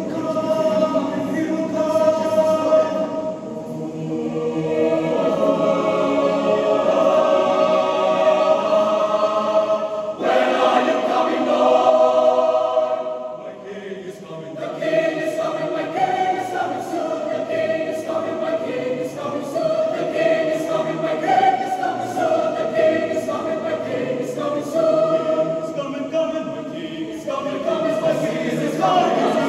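Mixed choir of men and women singing sustained chords in harmony. The sound eases briefly about halfway through, then swells again.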